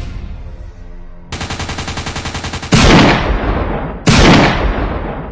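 Dubbed-in gunfire sound effects: a rapid automatic burst of about ten shots a second, then two heavy single shots a little over a second apart, each loud with a long echoing tail.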